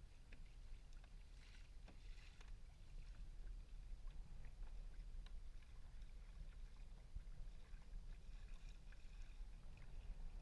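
A kayak moving on calm water: faint small splashes, drips and ticks of water against the hull, louder briefly about two seconds in and again near the end, over a low steady rumble.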